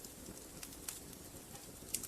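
Wood fire burning in a fireplace: a steady low hiss of the flames with a few sharp crackles and pops from the logs, the loudest pop near the end.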